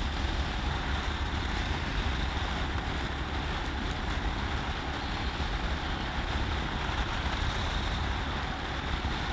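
Royal Enfield Himalayan motorcycle riding along at road speed: a steady blend of engine, tyre and wind noise, with wind rumbling on the microphone.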